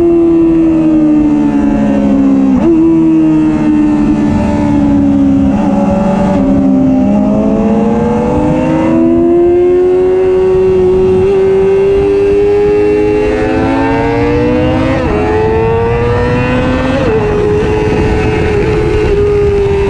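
Supersport motorcycle engine heard from the rider's seat at track speed, with wind rush. The engine note falls as the bike slows, jumps up in pitch suddenly about two and a half seconds in, bottoms out around seven seconds, then climbs steadily under acceleration before settling into a steady high note near the end.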